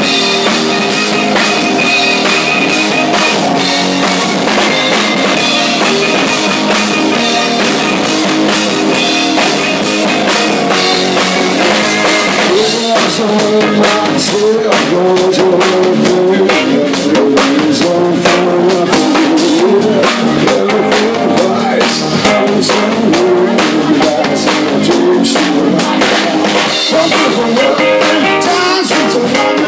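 Live rock band playing loudly: electric guitars, bass guitar and drum kit, with a male lead vocal coming in about 13 seconds in.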